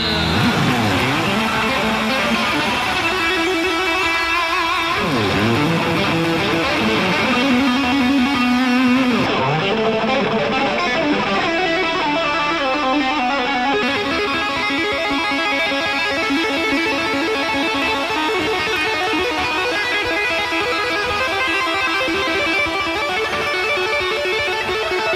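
Unaccompanied electric guitar solo of fast runs of notes, with several notes that swoop down in pitch and back up, a few of them in the first ten seconds.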